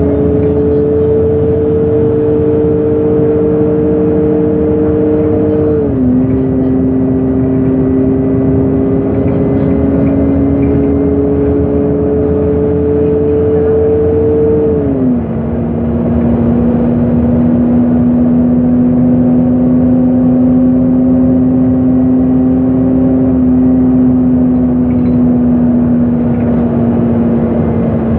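LPG engine of a MAN NG273 T4 articulated city bus accelerating. Its note climbs slowly and drops sharply twice, about six and fifteen seconds in, as the automatic gearbox shifts up. It then holds nearly steady, easing slightly, as the bus cruises.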